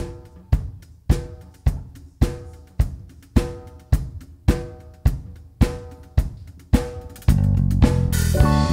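Drum kit playing a steady beat alone, a strike just under twice a second, each ringing out briefly. About seven seconds in, bass guitar and the rest of the band come in.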